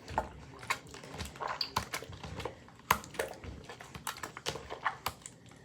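Wet slime being squeezed and pulled apart by hand, making a quick, irregular run of sticky clicks.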